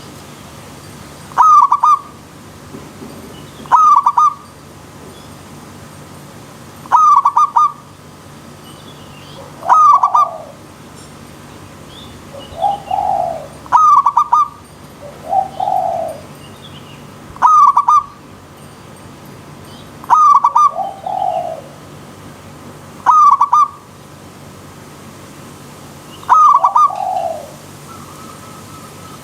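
Zebra doves (perkutut) cooing: a loud, clipped phrase about every three seconds, with a softer, lower coo following several of them. Underneath is a steady hiss of running stream water.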